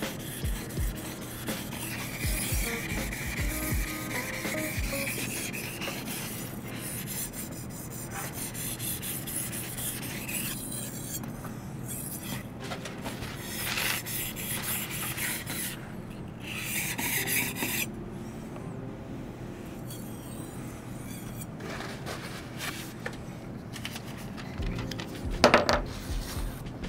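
A kitchen knife being sharpened on a whetstone: the steel blade rubbed back and forth over the stone in slow, rasping strokes. Near the end comes a short, louder crisp sound as a knife slices through paper.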